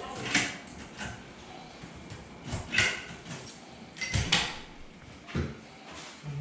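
Key working an apartment door's lock and lever handle: a series of separate metallic clicks and clacks, the loudest about three and four seconds in, then the door coming open near the end.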